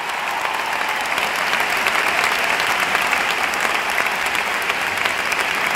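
A large arena crowd applauding: dense, steady clapping from thousands of hands.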